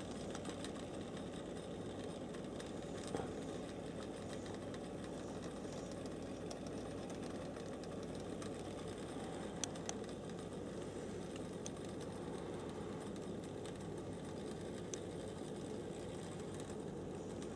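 HO-scale brass model 4-6-2 steam locomotive running on its track: a steady whir of the small electric motor and gears with wheels rolling on the rails, and a few light clicks.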